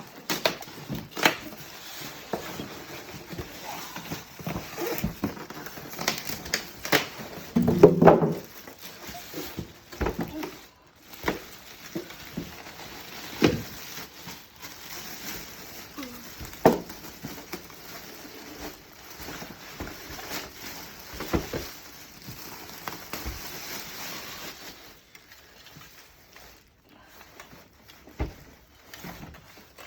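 Styrofoam packing pieces and wrapping being worked off an espresso machine: scattered rustling and crinkling with sharp knocks and clicks, and a louder burst of handling about eight seconds in.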